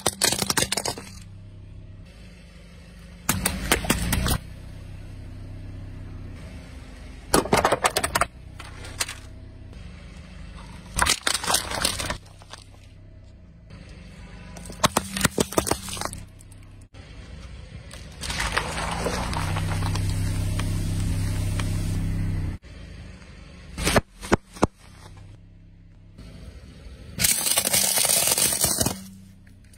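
A car tyre rolling slowly over plastic toys and small drink bottles, crushing them: a string of sharp cracks and crunches every few seconds, with one longer, steady rush of noise about two-thirds of the way through.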